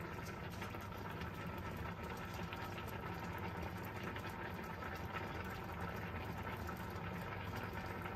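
Coconut-milk curry sauce simmering in a stainless steel frying pan, a steady fine crackle of small bubbles, while a wooden spatula stirs through it. A steady low hum runs underneath.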